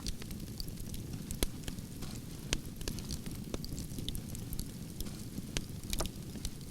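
Wood campfire burning logs: a steady low rumble of flames with sharp crackles and pops, a strong pop about every second.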